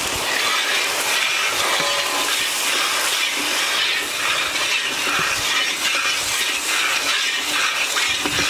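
Hot oil sizzling steadily in a large iron kadai of frying dried red chillies as spice powder is tipped in, with an iron spatula scraping the pan as it is stirred.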